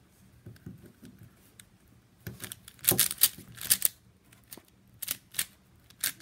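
Plastic 4x4 Rubik's cube clacking as its layers are turned, in irregular bursts of sharp clicks, loudest about three seconds in.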